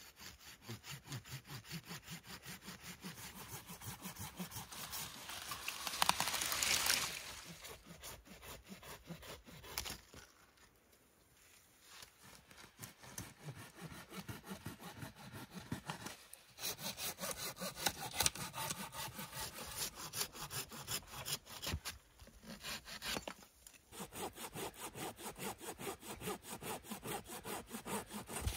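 Folding hand saw cutting through young conifer trunks, a steady back-and-forth rasp at about two to three strokes a second. It stops for short breaks several times, and there is a louder stretch about six seconds in.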